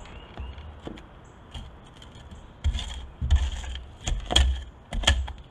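Sharpened shovel digging into clay soil: after a quiet start, a run of thumps and scrapes about halfway in as the blade bites in and pries dirt loose.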